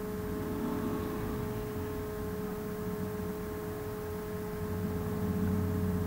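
Steady background hum with a few constant whining tones, and a low hum that grows louder about five seconds in.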